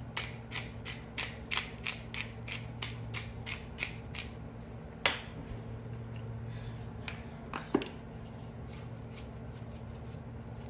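Hand pepper mill being twisted to grind pepper: a quick run of creaking, ratchet-like clicks, about three to four a second, for the first four or so seconds. Then a sharp knock about five seconds in, a few lighter clicks, and another sharp snap near eight seconds.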